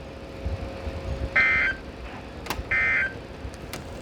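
Emergency Alert System end-of-message data tones: short, identical bursts of digital SAME code, one about every 1.3 seconds, two of them and a third starting at the very end. They signal the close of the severe thunderstorm warning.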